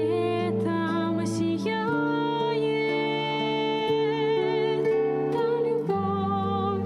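Slow, gentle music with long held notes that waver slightly, changing every second or two.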